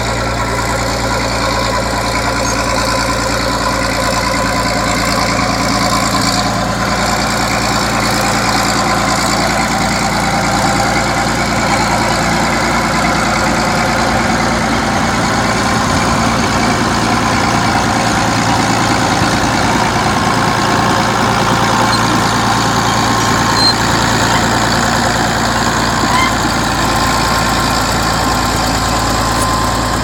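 Crawler bulldozer's diesel engine running steadily and loudly as the machine pushes soil with its blade.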